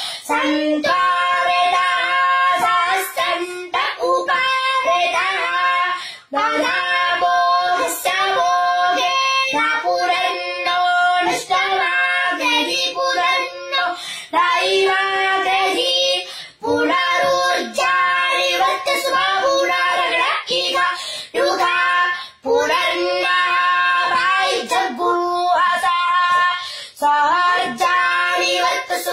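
A young boy chanting Vedic mantras in a sing-song recitation held on a few steady pitches, in long phrases broken by short pauses for breath.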